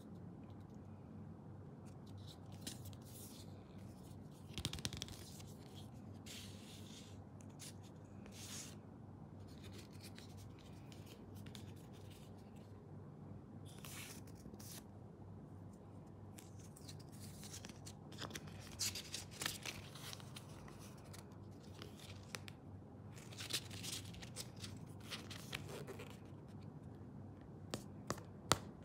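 Watch packaging being handled during an unboxing: scattered short rustles, scrapes and tearing-like sounds of paper and plastic, coming more often in the second half, over a steady low hum.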